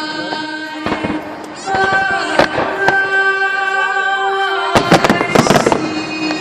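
Display fireworks bursting in sharp bangs, scattered at first, then a dense run of crackling bangs about five seconds in, over music of long held notes.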